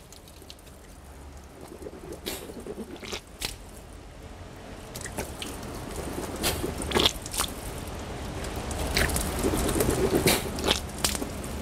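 Tap water trickling into cupped hands and splashing, louder toward the end, while the mouth is rinsed, water is sniffed up into the nose and blown back out (istinsyaq and istinsar in wudu). These come as a series of short, sharp slurps and splashes.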